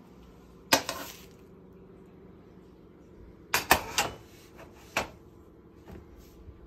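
Metal kitchenware clinking and clanking: a sharp clank under a second in, a quick cluster of three a little past halfway, and one more a second later.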